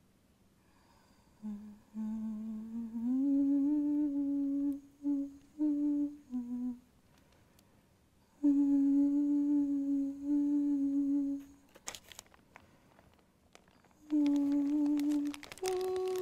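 A woman humming a slow tune in held phrases broken by pauses, the pitch stepping up and down between notes. There are a few short crackles about twelve seconds in and again near the end.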